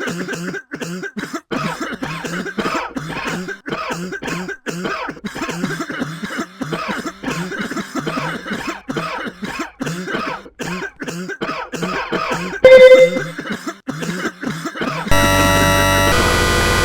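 Rapid, repeated coughing, two or three short hacks a second, for about fifteen seconds. About thirteen seconds in a loud, short beep cuts in. Near the end a loud, dense electronic din with many tones begins.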